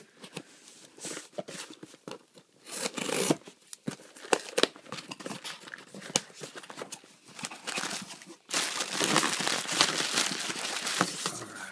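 Scissors cutting through the packing tape and cardboard of a shipping box, with scattered sharp snips and short tearing scrapes. About eight and a half seconds in, a louder, denser stretch of plastic packing crinkling as the box is opened and the wrapping handled.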